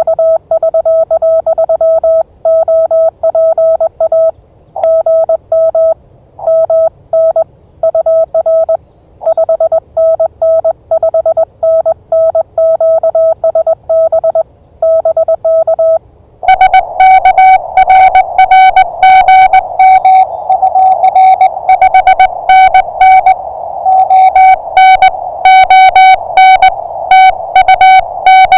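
Morse code (CW) from an amateur radio transceiver: a clean tone keyed on and off in dots and dashes, as the operator's own sending sidetone. About sixteen seconds in, a slightly higher-pitched, louder and harsher Morse signal takes over, keyed over receiver hiss: another station heard through the radio.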